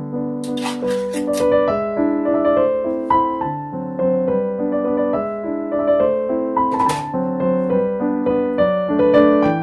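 Background piano music playing a gentle melody of steady, evenly paced notes. Two short noisy sounds come through it, one about half a second in and one about seven seconds in.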